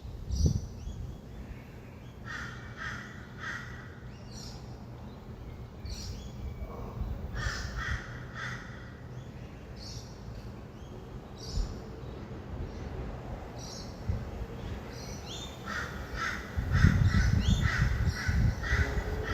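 Birds calling at dawn: harsh calls repeated in quick runs of three or four, three times, with higher chirps between, over a steady low rumble of distant traffic that grows louder near the end.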